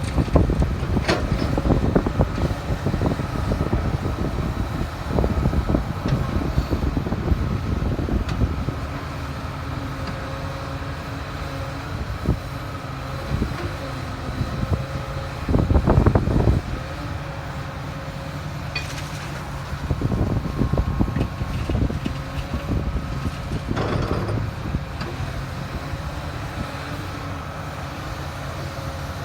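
Komatsu excavator's diesel engine running steadily under load, with scattered knocks and a louder surge about sixteen seconds in.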